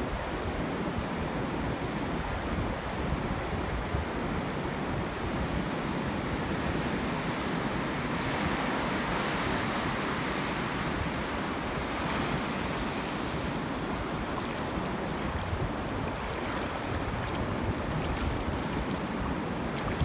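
Shallow surf washing over flat wet sand: a steady hiss of moving water that swells a little about eight seconds in and eases again a few seconds later.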